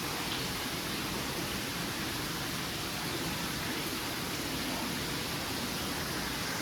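Minka Aire Sundance ceiling fan running, heard as a steady, even rush of moving air with no motor hum or ticking.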